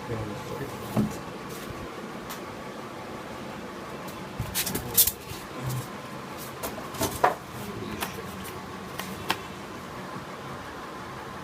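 Scattered knocks, clicks and rustles of packaging and parts being handled while a home theatre system is unboxed, over a steady background hum. The loudest knocks come about five and seven seconds in.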